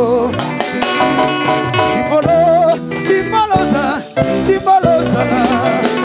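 Live band playing upbeat dance music, with a wavering melody line over guitar and steady percussion.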